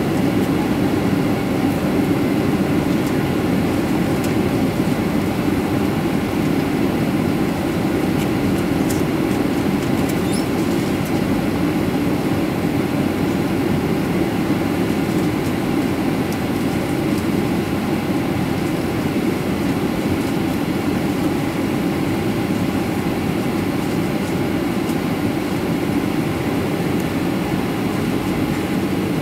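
Steady cabin noise inside a Boeing 737-300 on descent: the hum of its CFM56-3 turbofan engines and the rush of air along the fuselage, heard from a seat beside the engine.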